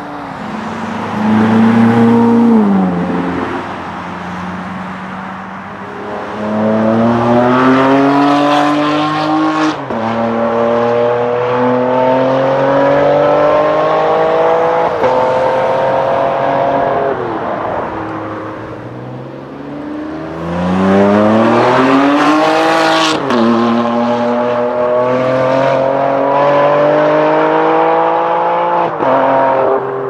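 Ferrari sports-car engines accelerating hard through the gears as they pass: a rising engine note cut by quick upshifts, in two long pulls, the first starting about a fifth of the way in and the second about two-thirds of the way in.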